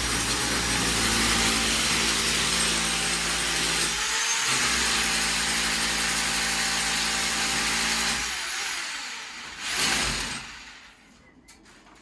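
Power drill running under load while boring a hole, easing off briefly about four seconds in. It stops after about eight seconds and winds down, followed by one short loud burst of noise near ten seconds.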